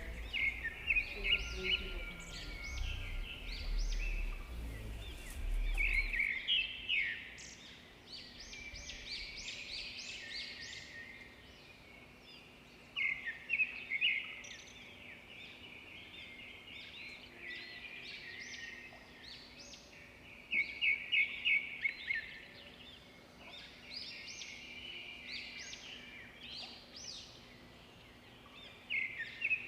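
Small birds chirping and twittering, with clusters of rapid repeated chirps every several seconds. A low rumble sits underneath for the first six seconds or so, then stops.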